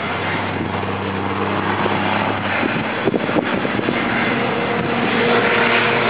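de Havilland Canada DHC-6 Twin Otter's two turboprop engines running as it flies overhead, getting louder toward the end. A few brief clicks a little past halfway.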